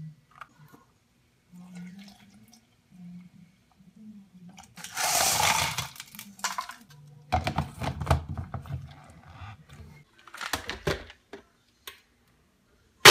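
Milk and ice being poured into a plastic NutriBullet blender cup over oats and peanut butter, in several short bursts of splashing and clattering. The NutriBullet blender motor switches on right at the end.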